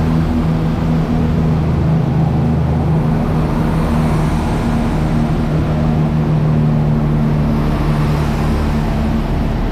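Diesel train engine running steadily at a constant note, a loud, even hum with no change in speed.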